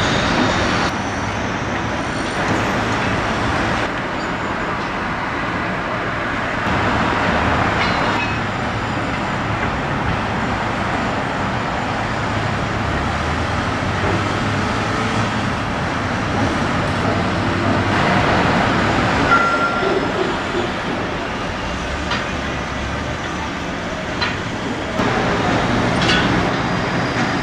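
Steady drone of engines running on a construction site, with a few light metallic clicks and clanks from work on the rig.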